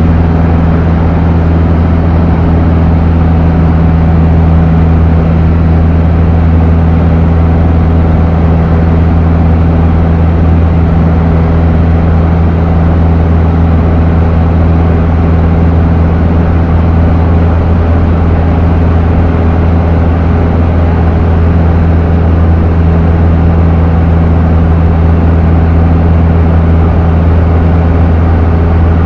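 Cessna 152's four-cylinder Lycoming O-235 engine and propeller running steadily in cruise flight, heard inside the cabin as a loud, even drone.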